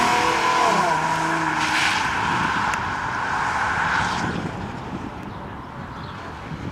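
Ford Mustang driven hard through cones: its engine note falls in pitch in the first second as it slows, then its tires squeal through the turn for about three seconds before the sound eases off.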